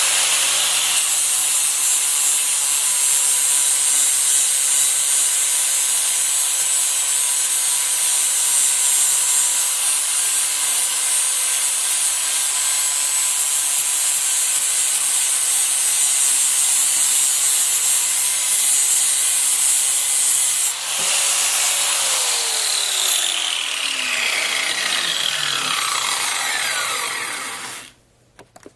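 Electric rotary power tool running at full speed with a loud rasping hiss and a steady whine. About three-quarters of the way through it is switched off, and its whine falls in pitch as it spins down over several seconds before stopping.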